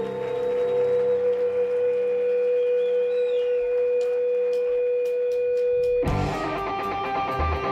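Live rock band opening a song: an electric guitar holds one long sustained note for about six seconds. Then distorted electric guitar chords come in.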